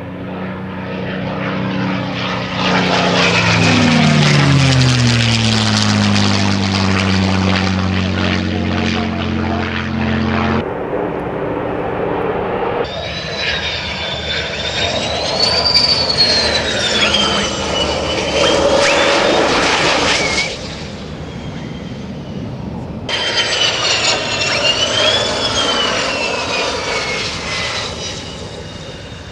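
A propeller airplane's engine passing close, its note dropping in pitch as it goes by. After abrupt cuts, a U.S. Air Force Thunderbirds F-16 jet on landing with gear down, its high engine whine rising and falling in pitch.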